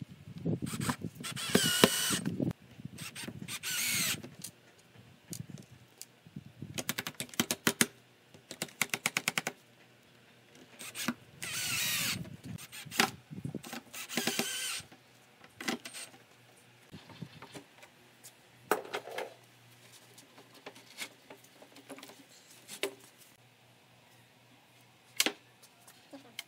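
Cordless drill-driver driving small screws into brass hinges on wooden boards: a series of short whirring bursts of a second or two each, with a run of rapid clicks about eight to nine seconds in. In the second half, only scattered knocks and clunks of the wooden boards being handled.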